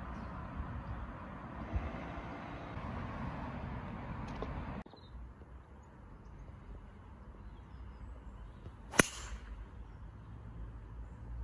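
Driver striking a golf ball off the tee: a single sharp crack about nine seconds in, over a steady low background noise.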